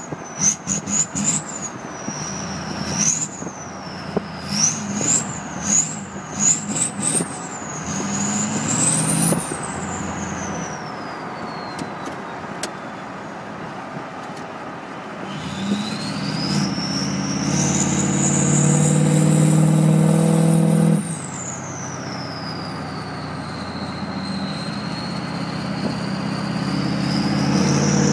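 2003 Ford 6.0 Powerstroke V8 turbodiesel with its turbocharger whistling, the high whistle rising and falling with a run of quick revs before fading away. Later a long pull brings the whistle climbing again with the engine loud, until the throttle is lifted sharply and the whistle winds down, rising once more near the end.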